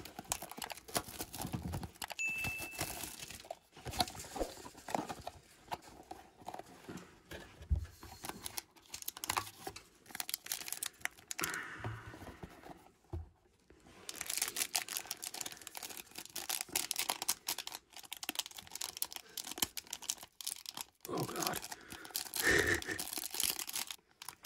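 Wrapping being torn and crinkled off a cardboard trading-card box, with dense crackling that is busiest in the second half. The box is handled and its lid opened, and near the end a foil card pack is worked against a utility knife.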